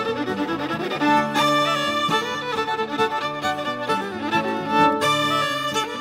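Instrumental background music led by a fiddle, with a louder phrase coming in a little over a second in.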